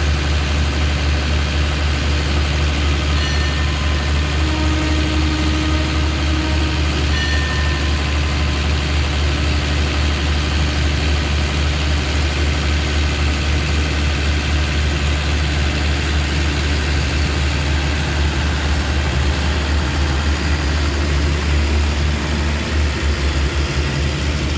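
Diesel engine of a stopped passenger train idling with a steady low hum.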